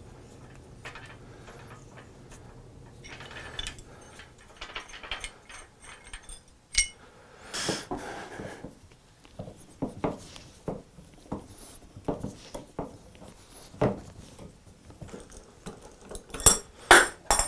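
Irregular metallic clinks and knocks of tools and metal parts being handled and fitted. A denser run of sharper clanks comes near the end.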